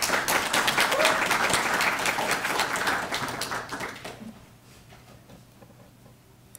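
Audience applauding: dense clapping for about four seconds that then dies away.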